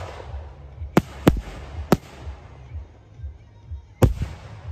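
Aerial firework shells bursting: a string of sharp bangs, three in quick succession in the first two seconds and another about four seconds in, over a low rumble, with music playing underneath.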